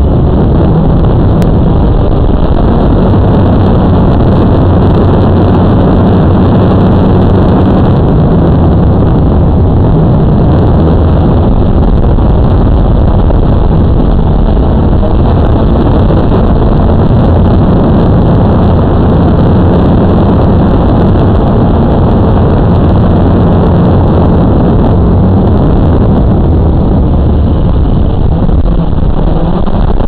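Quadcopter drone's electric motors and propellers running steadily in flight, heard close from the drone's own camera as a loud, unbroken buzzing hum whose pitch wavers slightly as it manoeuvres.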